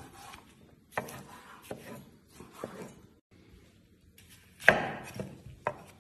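Chef's knife slicing green bell pepper, then onion, on a wooden cutting board: separate, irregular knocks of the blade striking the board, with the sharpest strike about three-quarters of the way through.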